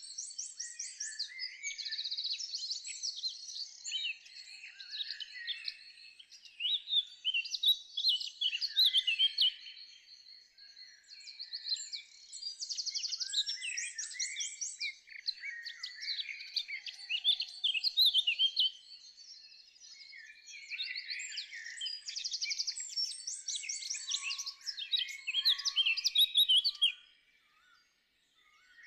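Songbirds singing: a dense chorus of quick chirps and high, rapid trills, with one loud trilled phrase coming back about every ten seconds. The singing breaks off for about a second near the end.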